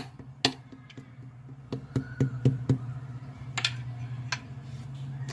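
Slime being squished and stretched by hand, giving irregular sticky clicks and pops, a few each second, over a steady low hum.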